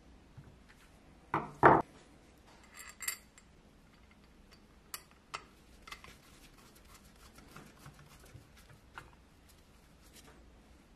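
Painted metal parts of a mechanical coin bank knocking and clinking together as they are handled and fitted. The loudest is a double knock about a second and a half in, then a short run of clinks, then scattered light clicks.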